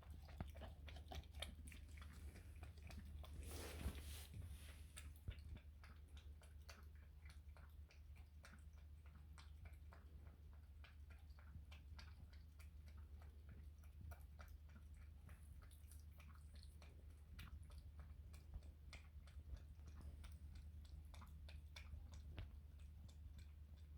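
A kitten lapping milk: faint, rapid, irregular wet clicks of its tongue, over a steady low hum.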